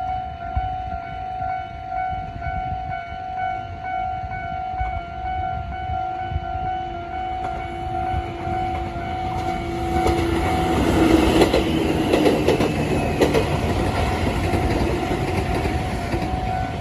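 Japanese railway level-crossing warning bell ringing steadily in a fast repeating pattern. From about ten seconds in, a train runs over the crossing, its wheels clattering over the rail joints, loudest for the next few seconds and then easing off.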